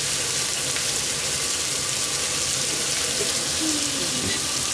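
Bratwursts frying in their own fat on the hot ridged plates of an electric contact grill, a steady sizzling hiss.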